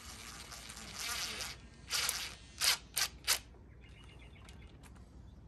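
DeWalt cordless impact driver hammering on a bolt. It runs for about a second and a half, then gives a shorter burst and three quick trigger taps in a row.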